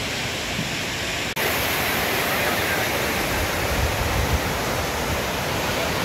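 Waterfall: a steady, loud rush of falling water. It cuts out for an instant just over a second in, then resumes.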